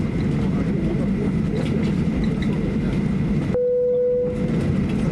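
Cabin noise of a Boeing 737-800 taxiing: a steady low rumble from the idling engines and rolling airframe, with a faint steady whine. Past the middle the rumble cuts out abruptly and a single steady tone sounds for about a second.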